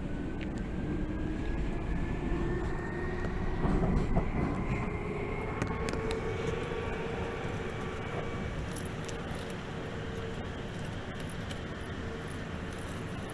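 Tokyu 8500 series electric train running, heard from inside the car: a steady rumble of wheels on rail with a traction-motor whine that rises in pitch as the train gathers speed, levelling off about halfway through. The rumble swells briefly about four seconds in.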